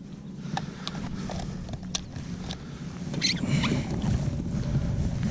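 Wind rumbling on the microphone aboard a kayak, with scattered small clicks and knocks and a brief hiss about three seconds in; the rumble grows a little louder near the end.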